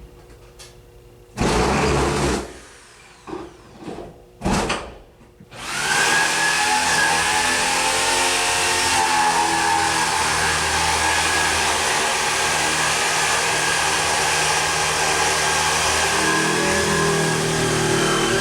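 An electric motor with a fan or rotor, after a few short noisy bursts, starts up about five seconds in and then runs steadily with a whirring, whining hum.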